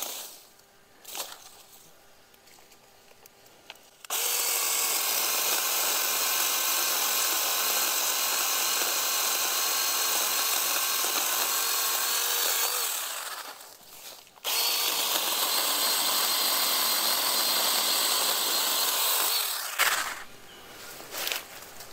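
Ryobi P5452 8-inch battery-powered mini chainsaw cutting through a sweet gum sapling trunk about three inches thick, running in two long steady spells with a short break between. Leaves and branches swish as the cut sapling falls just before the end.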